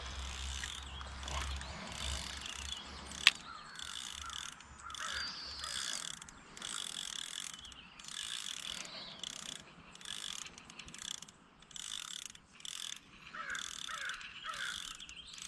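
Spinning reel cranked in short spurts about a second apart, its gears whirring as a lure is retrieved, with one sharp click about three seconds in.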